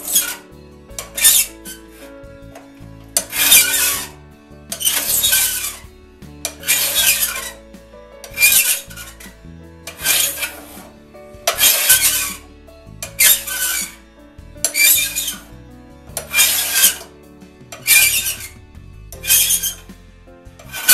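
Flat file rasping across a raker tooth of a one-man crosscut saw through a raker depth gauge, dressing the raker down to 15 thousandths below the cutting teeth. About a dozen even strokes, one every second and a half or so.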